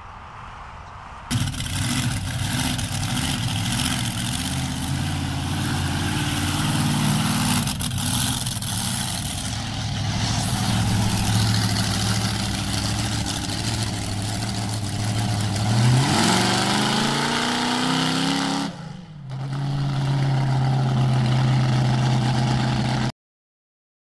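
Monster truck engine running loud and steady, revved up with a rising pitch about two-thirds of the way in, dropping away for a moment and settling back to a steady run. The sound cuts off abruptly near the end.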